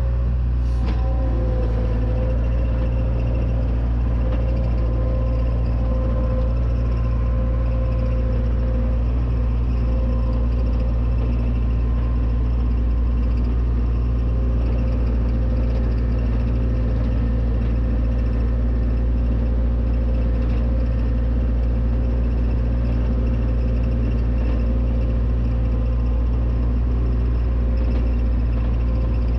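John Deere 270 skid steer's diesel engine running steadily, heard from the operator's seat: a loud low drone with a steady whine above it, the pitch dipping slightly about a second in.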